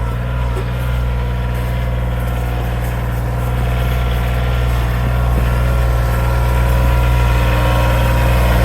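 An engine running steadily with a low hum, growing a little louder toward the end.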